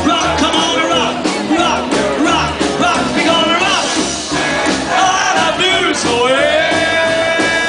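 Live rockabilly band playing: upright bass, acoustic rhythm guitar and electric lead guitar, with a male singer. A long held note comes in about six seconds in.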